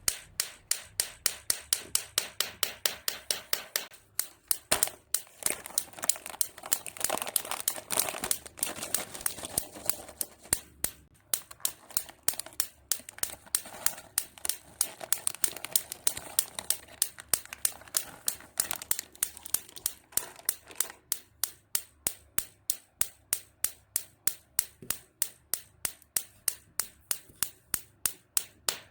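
High-voltage spark discharge from a small Tesla-coil-style generator snapping in a steady rhythm, about three to four sparks a second, with crackling and crinkling between the snaps.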